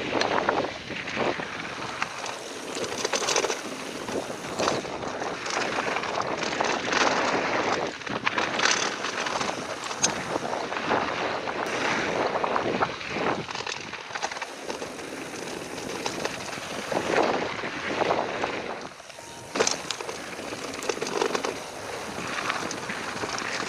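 Ghost FR AMR X6 mountain bike descending a downhill trail at speed: wind rushing over the action camera's microphone, tyres on loose dirt, and the bike rattling with frequent sharp knocks as it hits bumps.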